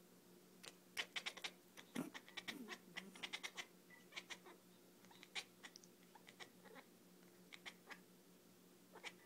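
Cat making a dolphin-like clicking chatter while fixed on a laser dot: quick runs of sharp clicks with a few short squeaky chirps, in bursts, over a faint steady hum.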